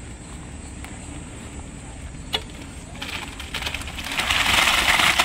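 Wet concrete sliding out of a tipped wheelbarrow and pouring into a dug footing trench: a rough, rushing pour that starts about three seconds in and grows loud. A single sharp click comes shortly before it.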